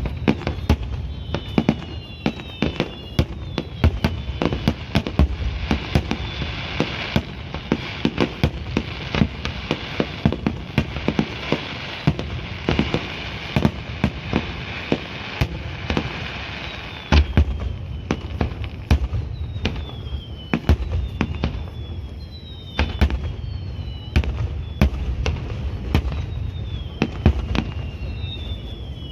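Fireworks display: a rapid series of bangs, with a heavy burst about 17 seconds in and several whistles that fall in pitch.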